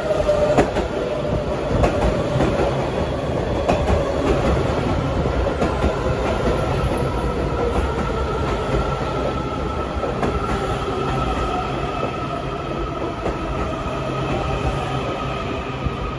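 Washington Metro subway train pulling into the station alongside the platform, its wheels clicking over the rail joints. An electric whine from the train falls slowly in pitch as it slows.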